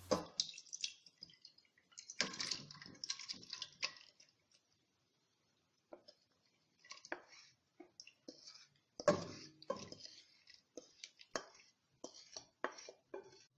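Thick medlar pulp, macerated with sugar and lemon juice, being spooned and poured from a bowl into a small saucepan: irregular wet plops and drips, with light knocks and scrapes of the spoon against the vessels.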